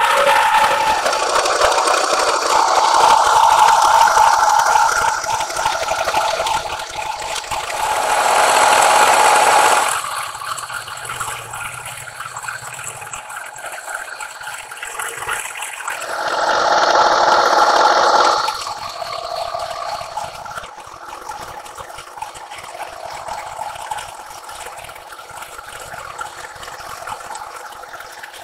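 A face mill cutting a long steel bar on a metal planer mill: a steady cutting noise with a held ringing tone. It is loudest for the first ten seconds or so and again for a couple of seconds about two-thirds of the way in, and lighter in between and toward the end.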